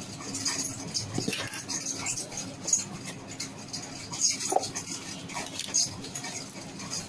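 Smartwatch box and its packaging being handled and opened: irregular scraping, rustling and light taps, over a faint steady hum.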